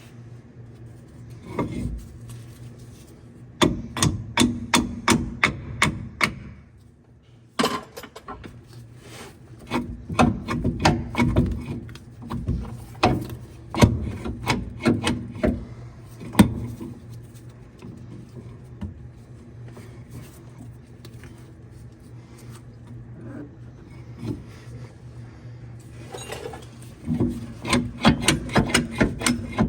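Hammer blows striking bolts in bursts of quick repeated strikes, about two to four a second, working loose seized fasteners on a bus suspension. A steady low hum runs underneath.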